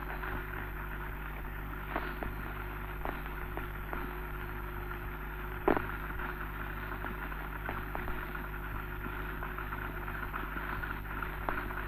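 Steady hum and hiss of a worn 1932 sound-film soundtrack, with scattered clicks and pops; one pop stands out, a little over halfway through.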